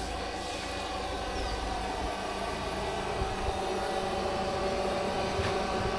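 Home-made electric blower, driven by a small 18-volt motor, running on the chimney of a Romulus-type miniature steam locomotive to draw the fire while raising steam: a steady whirring drone with several fixed tones.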